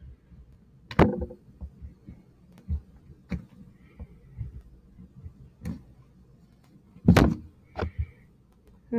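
Drawing by hand on a sheet of paper on a table: faint scratching of the drawing tool, with scattered light knocks and taps. The loudest knocks come about a second in and about seven seconds in.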